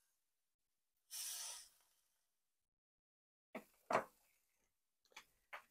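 Breaded salmon patties frying in butter in a cast-iron skillet: a brief sizzling hiss about a second in as a patty is turned with a metal spatula, then a few short clicks and knocks.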